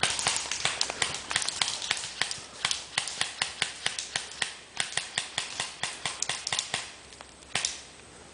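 A rapid, irregular series of sharp clicks and snaps, several a second, thinning out near the end with one last louder snap.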